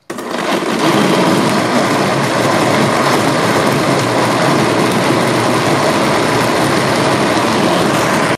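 Electric kitchen blender switched on and running at full speed, its motor spinning up over the first second, then holding a steady loud whir as it purées whole lemon quarters, peel and seeds included, in used frying oil. It cuts off abruptly at the end.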